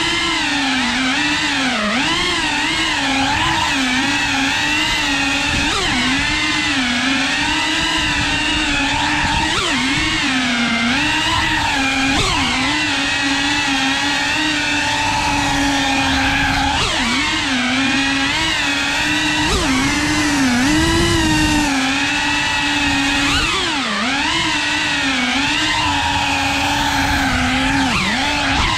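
3.5-inch cinewhoop FPV drone's motors and ducted propellers whining loudly, the pitch dipping and rising every second or so as the throttle changes.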